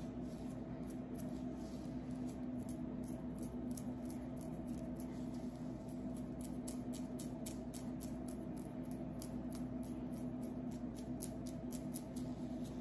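Fingernails scratching and picking at a scalp through hair to loosen dandruff flakes: short, crisp scratches at about three a second, over a steady low hum.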